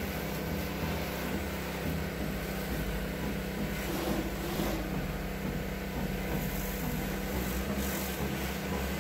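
Pressure washer running with a steady low motor hum under the hiss of its high-pressure water jet spraying onto a metal barbecue.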